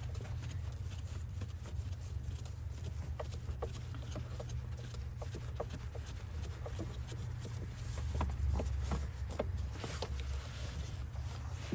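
Scattered light clicks and ticks of a screwdriver and plastic air filter housing parts being worked, over a steady low rumble.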